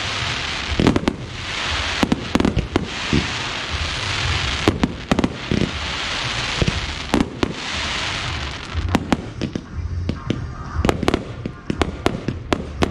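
Aerial fireworks shells bursting overhead: a fast, irregular string of bangs and sharp pops, with swells of dense crackling hiss between them. After about nine seconds the crackling dies away and single sharp pops stand out.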